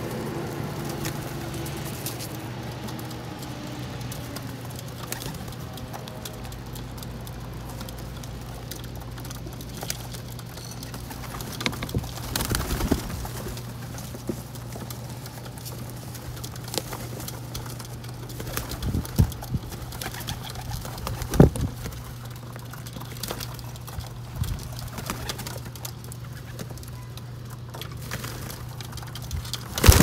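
Feral rock pigeons cooing and feeding, with scattered sharp taps and brief wing flutters as they jostle on a ledge. A loud flurry of wingbeats near the end as birds take off. A steady low hum throughout.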